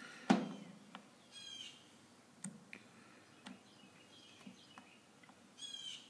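Small clicks and taps of multimeter test probes being handled and pressed onto the terminals of a blower motor's control module, with one sharper knock about a third of a second in. A bird chirps twice in the background.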